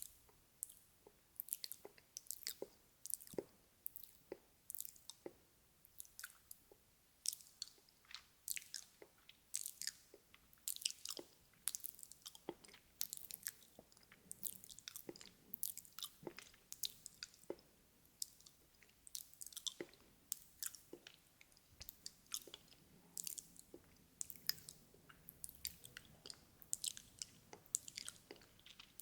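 Close-miked ASMR mouth sounds: irregular wet clicks and smacks of lips and tongue, several a second.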